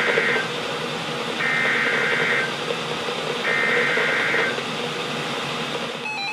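NOAA Weather Radio EAS SAME header: bursts of shrill two-tone digital data, each about a second long with about a second's gap between, over radio hiss. These mark the start of a new alert. Near the end a weather radio's buzzy alert tone starts.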